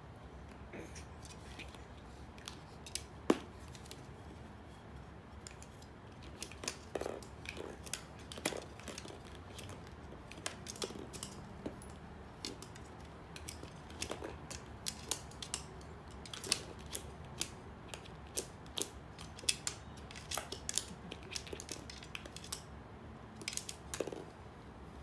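Irregular sharp clicks and taps of a hard plastic ball being pawed and mouthed by a poodle and knocked against wooden baby-gate bars, sparse at first and much more frequent from about six seconds in, with one louder knock about three seconds in.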